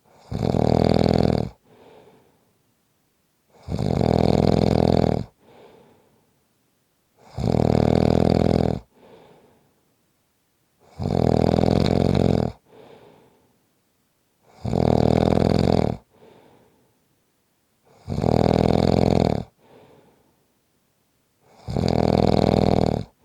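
A sleeping person snoring loudly and regularly, seven snores each lasting about a second and a half and coming about every three and a half seconds, with a faint breath after each one.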